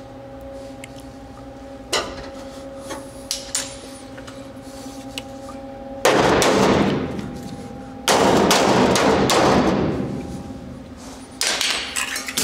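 Welding arc crackling in three bursts of about two seconds each, starting about six seconds in, as the new sheet-steel rocker panel of a 1961 VW Bus is welded in. A few sharp knocks come before, over a steady hum.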